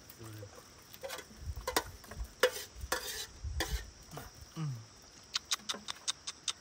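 Irregular knocks, thuds and clatter, then a quick run of sharp clicks in the last second and a half.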